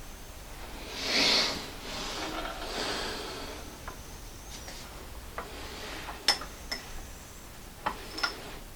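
Metal tools and parts being handled on a workbench: a short rush of noise about a second in, then several sharp metallic clinks with a brief ring, four of them in the last few seconds. No machine is running.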